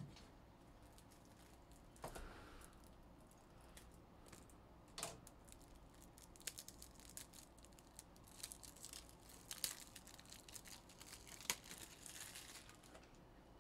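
Faint rustling and clicking with a few sharper ticks, thickest in the second half.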